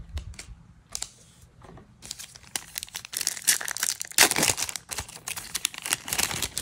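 A few soft taps of playing cards laid down on a pile, then a Magic: The Gathering collector booster pack's foil wrapper being torn open and crinkled by hand, a dense crackling from about two seconds in, loudest around the middle.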